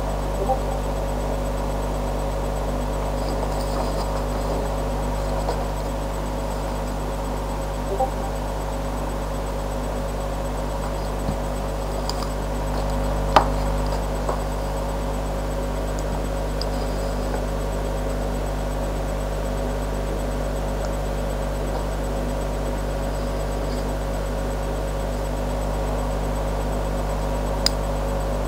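Steady low electrical hum with hiss, the noise floor of a webcam recording. A few faint clicks sound over it as over-ear headphones are handled close to the microphone, the loudest about halfway through and another near the end.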